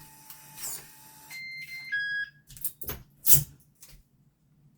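Yale Conexis L2 smart lock sounding its locking chime: a few short electronic beeps stepping in pitch. Several sharp clicks and knocks follow as the door is locked.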